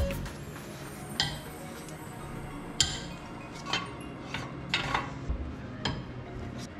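A string of separate metallic clinks and clanks from tools and steel brake parts as the wheel spacer and brake rotor are worked off a car's front hub, over faint background music.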